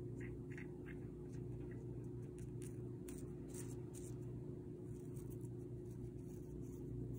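Faint scratchy rustling of a fingertip pressing and pushing loose hydrophobic sand into a small bowl shape, in scattered short scrapes, over a steady low hum.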